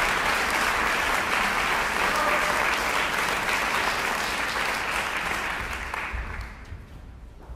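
Theatre audience applauding a ballet soloist. The applause is steady at first, then fades out about six to seven seconds in.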